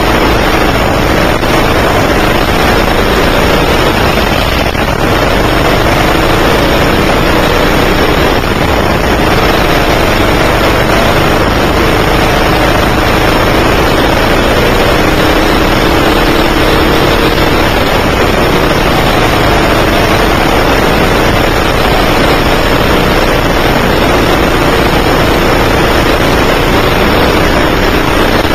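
A 9 hp kart engine running hard, heard loud from on board, its pitch rising and falling over and over as the kart laps.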